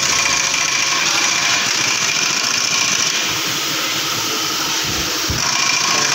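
Impact wrench hammering on the front wheel hub's centre axle nut, a continuous rattling run that stops about five and a half seconds in.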